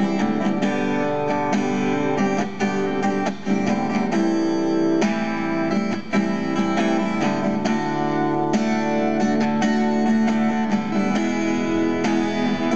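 Acoustic guitar strummed steadily through a chord progression, with no singing.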